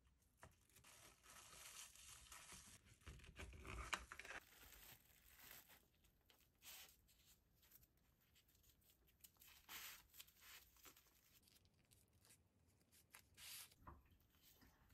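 Faint crinkling and rustling of plastic cling film as cooked rice is packed into a film-lined mold, busiest in the first four seconds. After that come scattered light rustles of a dry gim (laver) sheet being wrapped around the musubi.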